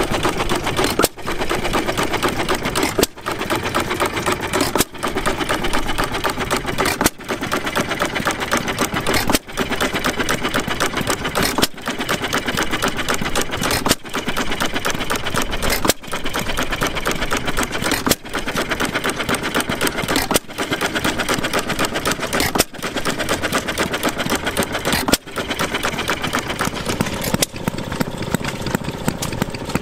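Antique hit-and-miss stationary gas engine running, a fast mechanical clatter with a regular beat about every two seconds.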